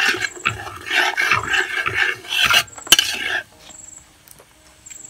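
A metal ladle scrapes around the bottom of an aluminium pot, stirring ginger-garlic paste frying in coconut oil. It goes in strokes of about two a second and stops abruptly about three and a half seconds in.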